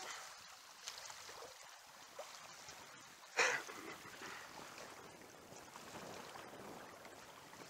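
Wind blowing and river current washing steadily, with one short, sharp noise about three and a half seconds in.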